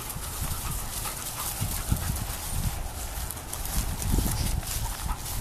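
Dogs running loose and moving about, with wind rumbling on the microphone.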